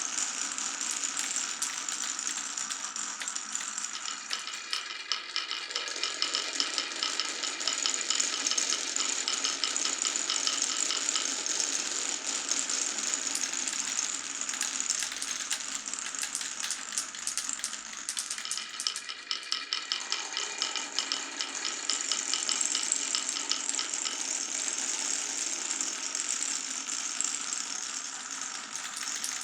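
Glass marbles rolling and clattering down a wooden marble run: a continuous dense rattle of many small clicks over a lower rolling rumble. The rumble drops out briefly about two-thirds of the way in, then returns.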